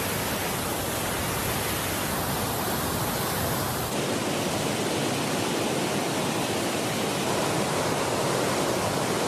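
Large waterfall in full flow: a steady, dense rush of falling water and spray.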